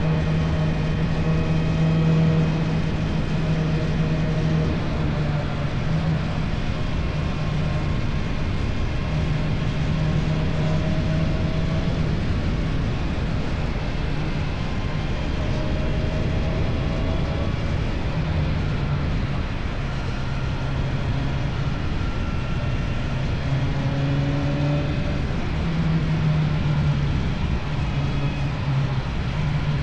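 Motorcycle engine running through an Akrapovič exhaust while riding, holding a steady note with small rises and falls in pitch over a constant rush of wind and road noise.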